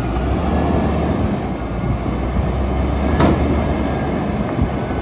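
Front-loading garbage truck's engine and hydraulics running as its forks lift a dumpster up over the cab, with a sharp clank about three seconds in. A thin steady whine comes in near the end.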